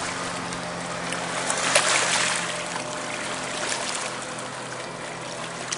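Water splashing and trickling as a bass is held in the lake for release, swelling into a louder splash about two seconds in, over a steady low hum.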